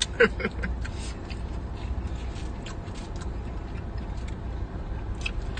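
Eating pizza with the mouth close to the microphone: a string of short, crisp chewing and biting clicks, loudest just after the start, over a steady low hum.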